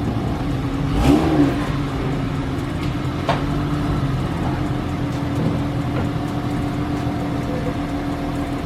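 Honda Odyssey minivan's engine running at low speed and revving briefly about a second in, as the lowered van is driven up onto a curb.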